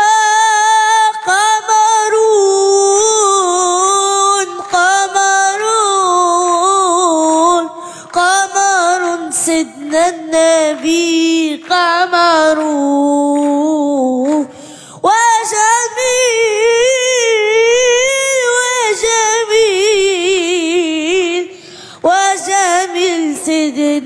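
A boy's high voice singing an Arabic devotional nasheed in praise of the Prophet, drawing out long ornamented notes with vibrato and breaking briefly between phrases.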